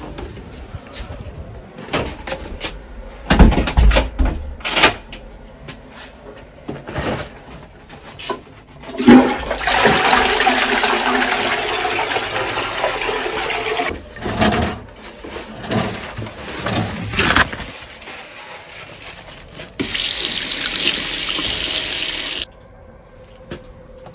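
Toilet flushing: a loud rush of water for about five seconds. It follows a few sharp knocks, and is followed by a second, shorter rush of water that cuts off suddenly.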